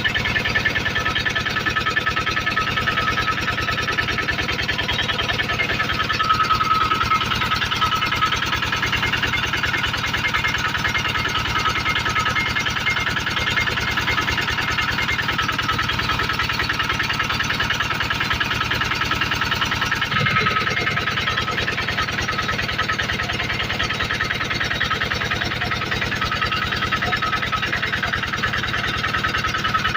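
Generator engine running steadily with a constant hum and drone, its tone shifting slightly about twenty seconds in.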